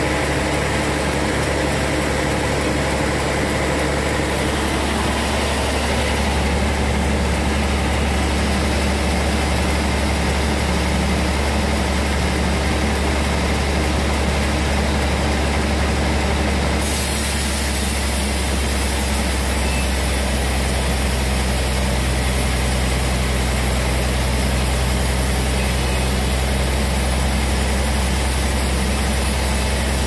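Sawmill machinery running steadily with a deep, constant hum and a wide noisy layer above it. The sound shifts abruptly a little over halfway through, then runs on just as steady.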